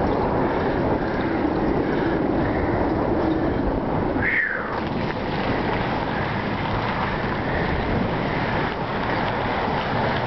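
Steady wind rush on the microphone of a camera carried on a moving bicycle, with one brief high squeak that falls in pitch about four seconds in.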